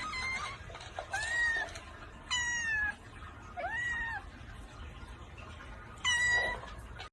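A cat meowing repeatedly: about five high-pitched meows, each about half a second long, the last after a longer pause.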